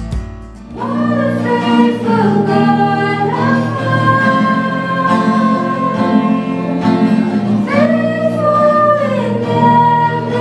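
A song: long held sung notes with a slight waver over a steady instrumental accompaniment, coming in after a brief dip about a second in.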